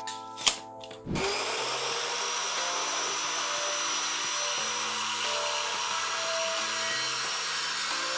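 A couple of sharp clicks, then about a second in a plunge track saw starts up, its motor spinning up quickly, and runs steadily as it begins cutting a plywood panel.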